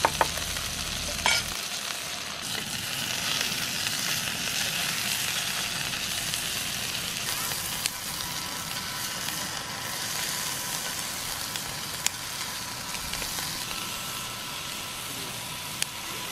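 Thick slabs of meat sizzling steadily in a hot cast-iron skillet, with a few sharp clicks of metal tongs against the pan.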